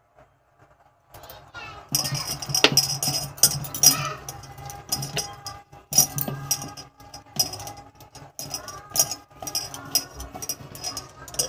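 Bangles on a hand kneading flour clinking and jangling against each other and the steel bowl, in rapid irregular clinks that start about a second in and grow busy from about two seconds.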